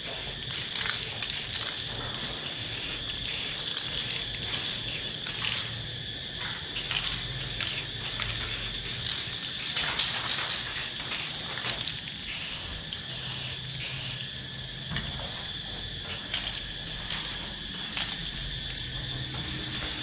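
Aerosol spray-paint can hissing in short and long strokes as outline lines are sprayed onto a wall, over a steady high-pitched drone.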